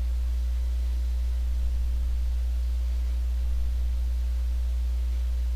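Steady low hum with a faint hiss.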